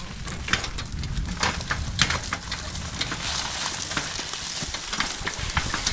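Footsteps through dry weeds and dead pumpkin vines, with irregular sharp crackling and crunching over a steady low rumble.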